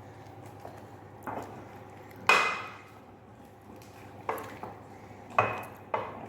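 A utensil knocking against the metal pan while beating churro dough, about five sharp clinks that ring briefly, the loudest a little over two seconds in.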